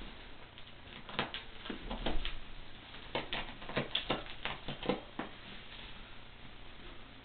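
Four-month-old kittens scrambling and pouncing after a wand toy, their paws and the toy making an irregular run of light taps and thumps from about a second in until about five seconds in.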